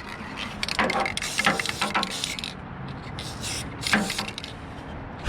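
Aerosol can of black spray paint in use: a few short hissing sprays, about a second in, again a little later and near 4 seconds, with small clicks and rattles of the can between them.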